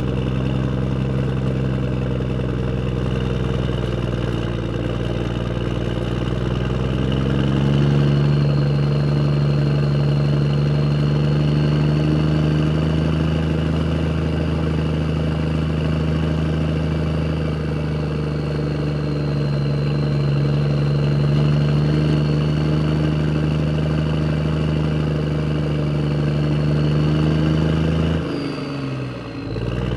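Car engine running steadily, its pitch shifting up a few seconds in. Near the end the sound drops away briefly and then comes back.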